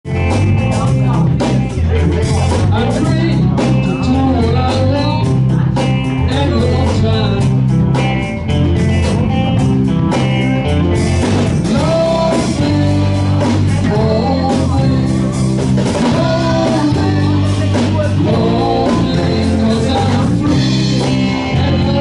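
Live band playing a song with a singer, guitar, bass and drums, the drums keeping a steady beat.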